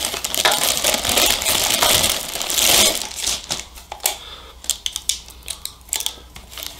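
Clear plastic packaging crinkling steadily as a car stereo head unit is pulled out of its bag. After about three seconds this gives way to a few light clicks and knocks as the metal-cased unit is handled on the workbench.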